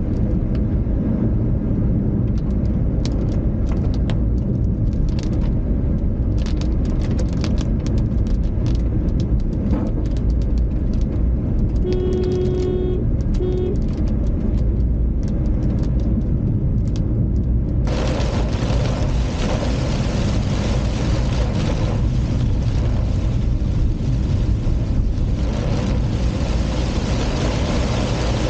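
Car driving in heavy rain: a steady low rumble of engine and road with scattered raindrop taps, a car horn honking twice about halfway through, and a loud steady hiss of rain and water spray setting in abruptly about two-thirds of the way in.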